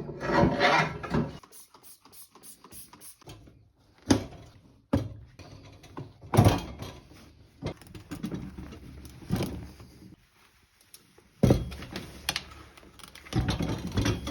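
Motorcycle tire being worked onto its rim by hand: irregular knocks and scrapes against the rim, a handful of separate strokes with quieter gaps between.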